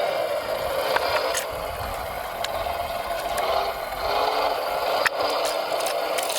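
Small electric motor and gearbox of a radio-controlled construction vehicle whining steadily under load, with a few sharp clicks and rattles of plastic and metal parts.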